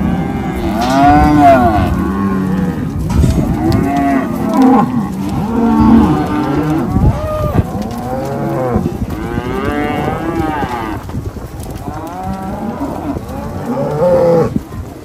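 Hereford cows and calves bawling, many calls overlapping one after another.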